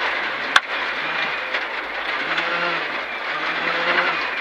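The Proton Iriz R5's 1.6-litre turbocharged four-cylinder engine pulling hard, its note climbing and breaking off again and again as it shifts up through the gears, over heavy gravel and road noise from inside the cabin. One sharp crack about half a second in.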